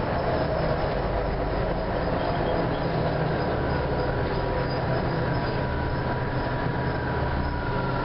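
Orion V diesel city bus under way, heard from inside: the diesel engine runs with a steady drone over road noise. A thin steady whine sits above it, and a fainter whine falls slowly in pitch over the last few seconds.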